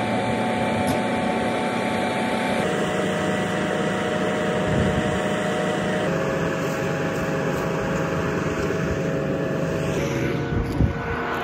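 Kubota M4-071 tractor's four-cylinder turbodiesel running steadily at a raised 2,200 rpm while its diesel particulate filter regenerates. Near the end, a thump and rubbing as the phone is picked up.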